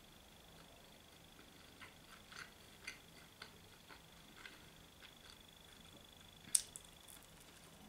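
Faint mouth sounds of a person chewing pizza: soft, irregular clicks and smacks, with one sharper click about six and a half seconds in. A faint steady high whine runs underneath.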